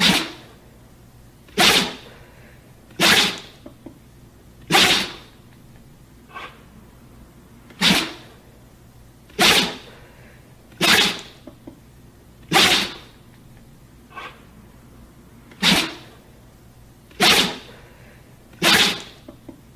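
A dog sneezing over and over, about eleven short, sudden sneezes roughly a second and a half apart, with two or three softer ones in between.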